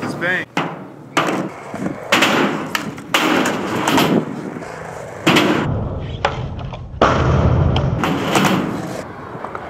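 Skateboard on concrete: the board knocking and clattering down several times and the wheels rolling as the skater pushes off. About seven seconds in, a louder low rumble as the wheels run up the metal-surfaced quarter pipe.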